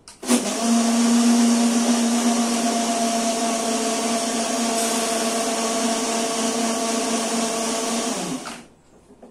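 Small electric blender (mixie) running, grinding soaked peanuts with a little water. The motor starts about a third of a second in, runs at a steady hum for about eight seconds, then is switched off and winds down.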